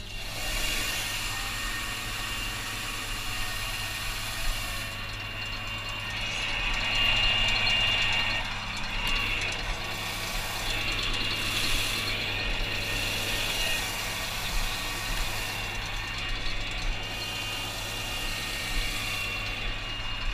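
Tractor running steadily while pulling a fertilizer spreader, heard from inside the cab: a constant low engine hum under a busy, continuous rattling and clicking of the cab and machinery.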